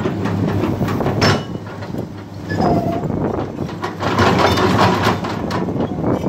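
Cat 318CL hydraulic excavator running while its bucket digs in a trench, with the diesel engine's steady hum under scraping and knocking of soil and stones. A short squeal sounds about two and a half seconds in.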